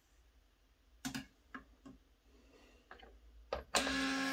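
A few light clicks and clinks of a powder funnel and brass cases in a loading block. Near the end an Autotrickler V3 powder dispenser starts its motor with a steady whir, throwing the next powder charge onto the scale.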